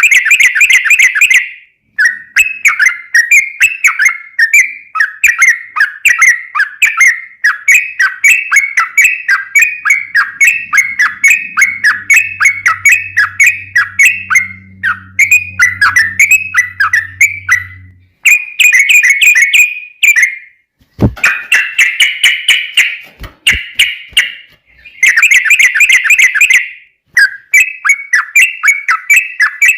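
Yellow-vented bulbul (trucukan) singing its fast rolling chatter: loud bubbly notes, several a second, in long bouts broken by short pauses.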